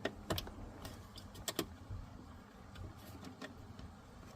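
Irregular light clicks and knocks of hands working the two locking tabs on the Chevy Express shifter cable end at the shifter linkage, with a sharper double click about one and a half seconds in.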